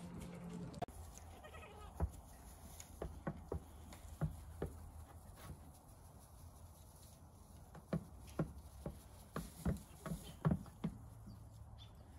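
Goat kids hopping on a plastic tub and an upturned plastic bucket: a scatter of short, sharp taps and knocks from their hooves, busiest near the end, with a few short bleats among them.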